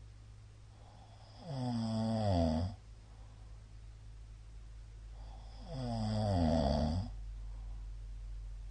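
A middle-aged man snoring in his sleep: two loud snores about four seconds apart, each lasting about a second, their pitch sliding downward.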